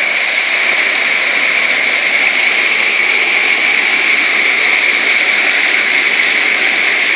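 Water rushing steadily through a shrimp pond's bottom drain, a loud even hiss with no change in level.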